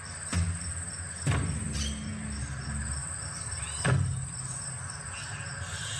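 Crickets chirping in a steady, pulsing high trill, broken by three deep thumps, the loudest about a second and about four seconds in.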